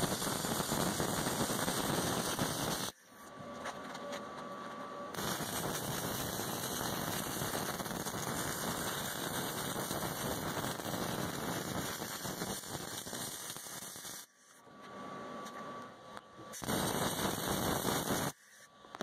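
Arc welding on steel: a steady crackling sizzle as beads are laid joining steel plates to a steel-pipe bumper. It comes in three runs, about three seconds, then a long run of about nine seconds, then a short one near the end, with quieter pauses between.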